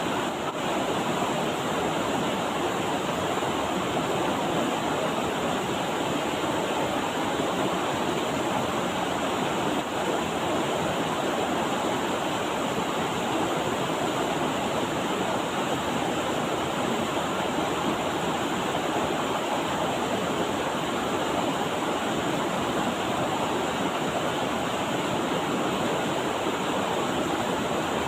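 Steady rushing of a mountain river's flowing water, an even, unbroken noise.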